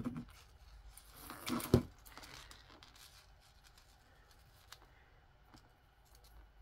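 Fingers working a knotted two-strand gold-tone chain necklace loose: quiet rustling and small clicks of the fine chain and handling. A louder rustle ends in one sharp knock a little under two seconds in.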